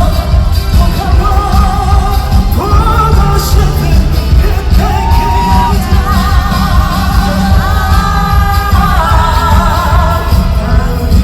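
A live concert song played through the hall's sound system: a singer holding wavering, vibrato-laden notes over a band backing with a heavy, steady low beat.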